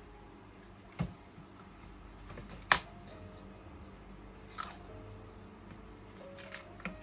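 Stiff card and paper packaging handled and folded by hand: soft rustling with a few sharp snaps and taps, the loudest just under three seconds in.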